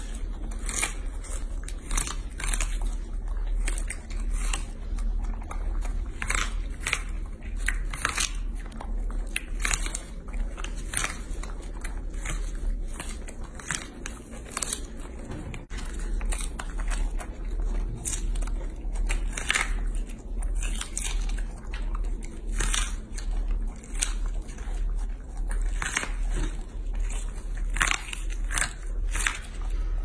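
Baby macaques biting and chewing an ear of corn: repeated sharp crunches of corn kernels, irregular, about one to three a second.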